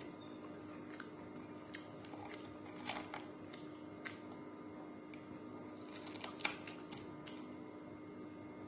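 Scattered small crunches and clicks of crisp fried galunggong (round scad) being picked apart by hand and chewed, with a cluster about three seconds in and another around six to seven seconds, over a steady low hum.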